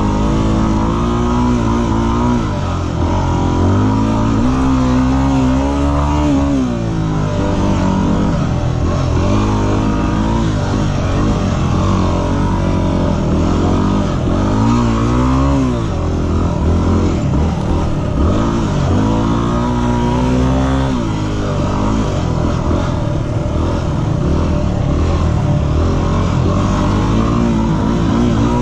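Yamaha WR250R's single-cylinder four-stroke engine running hard, its pitch rising and falling every second or two as the throttle opens and closes and the gears change.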